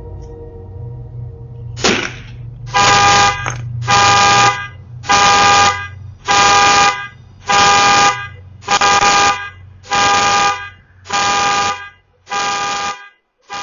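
A single sharp hit about two seconds in, then a pickup truck's alarm blaring its horn in about ten evenly spaced honks, roughly one a second: the alarm set off by the blow to the truck.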